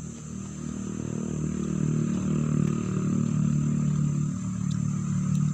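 A motorcycle engine running and drawing nearer, growing louder over the first two seconds and then holding steady. A steady high insect drone runs behind it.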